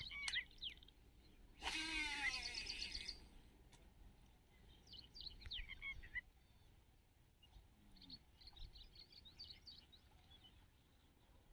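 Quiet marsh ambience with small birds chirping on and off. About two seconds in comes a louder call or sound of about a second and a half whose pitch falls.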